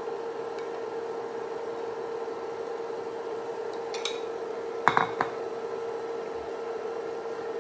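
Porcelain spoon and ceramic bowl clinking as white batter is poured and scraped out, with a sharp clink about five seconds in and a second just after as the bowl and spoon are set down on the stone counter. A steady hum runs underneath.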